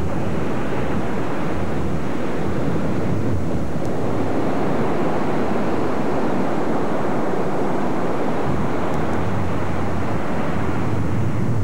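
Steady rush of ocean surf mixed with wind buffeting the camcorder microphone.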